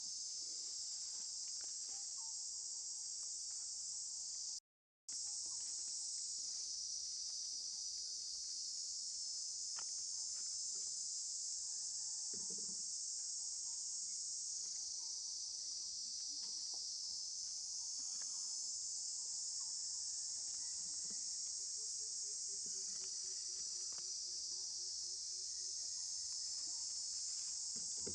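Steady, high-pitched chorus of insects that cuts out for a moment about five seconds in.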